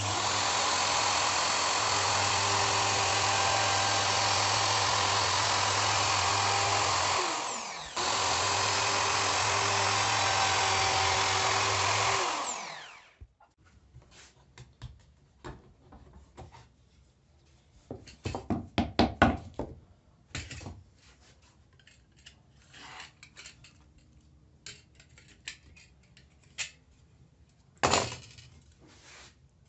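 Electric power tool motor running steadily at speed, dipping briefly about seven seconds in, coming back up, then winding down after about twelve seconds. Small clicks and knocks of handling follow, with a short louder clatter near the end.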